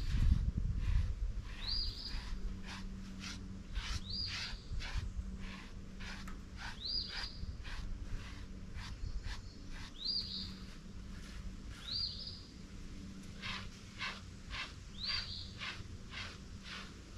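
A bird repeats a short rising call every two to three seconds, over quick scratchy strokes of a dog slicker brush through a miniature donkey's shedding coat. A low rumble is heard in the first second.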